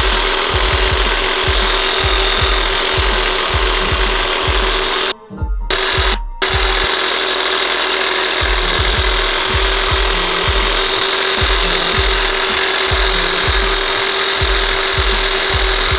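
Pneumatic air chisel (air hammer) running continuously as it cuts a relief cut into a seized rear suspension bushing's sleeve to break its grip, with two short breaks about five and six seconds in. A low beat sounds about two to three times a second underneath.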